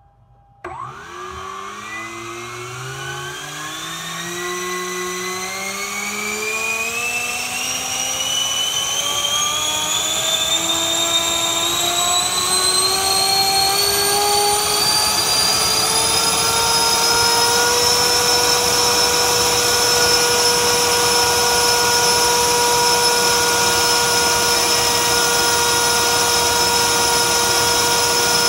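Dynamax 127 mm electric ducted fan with a TP-5850 700 kV motor starting from standstill about a second in, its whine rising steadily in pitch over a growing rush of air for around seventeen seconds. It then holds a steady high whine at full power, about 28,500 rpm.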